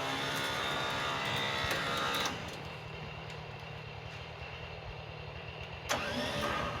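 Chainsaw running at high revs, dropping back to idle about two seconds in and revving up again near the end.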